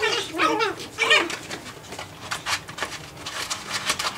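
Japanese Chin puppies giving high-pitched yips and whines in play, two wavering calls in the first second or so, followed by a run of quick clicks and scuffles as they scamper about.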